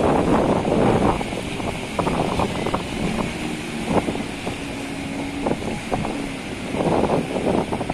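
Small fishing boat's motor running under gusty wind buffeting the microphone, with irregular knocks and thumps at sea in strong wind.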